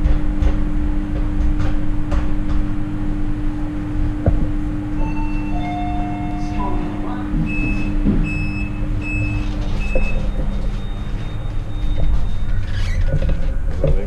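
Low rumble of wind and road noise while riding a bicycle, under a steady hum that stops near the end. A little past halfway, a run of short high beeps about half a second apart.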